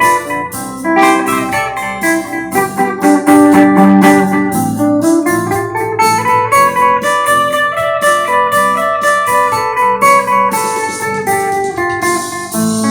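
Electric guitar played with a clean tone: a continuous run of picked melodic notes, with a slow rising line through the middle.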